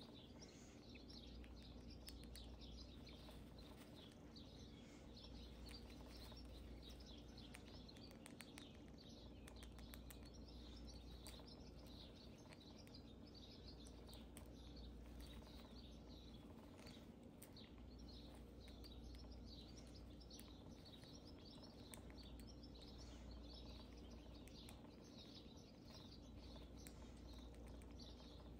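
Faint, rapid crunching and clicking of a hamster gnawing kernels off a multicoloured corn cob, in near silence.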